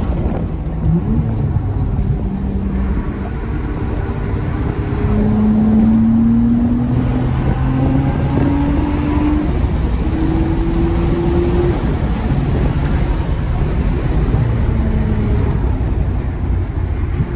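Nissan Skyline R32 GT-R's twin-turbo straight-six heard from inside the cabin under way, its note rising in pitch several times with short breaks between, over heavy road and wind noise.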